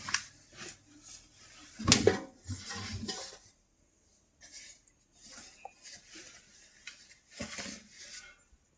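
Clothes being loaded by hand into a front-load washing machine's steel drum: fabric rustling, with a few knocks and clinks against the metal, the loudest about two seconds in.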